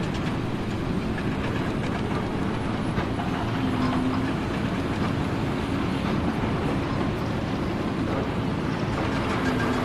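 Steady mechanical rumble from heavy running machinery, with a faint low hum throughout.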